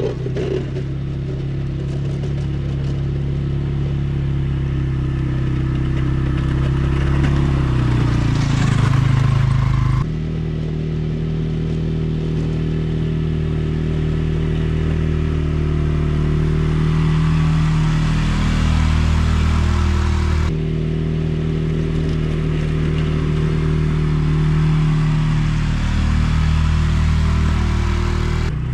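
ATV engine running steadily under load while pushing snow with its plow blade, the engine note shifting in pitch around eight seconds in and jumping abruptly about ten and twenty seconds in.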